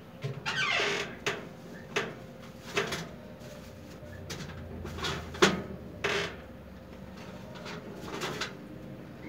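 Irregular short knocks and clatters of kitchen things being handled and set down, with a rustle near the start and another about six seconds in; the sharpest knock comes about five and a half seconds in.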